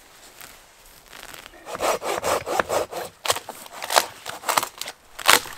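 Small hand saw cutting through a dead branch, in quick back-and-forth rasping strokes about three a second, starting about a second and a half in.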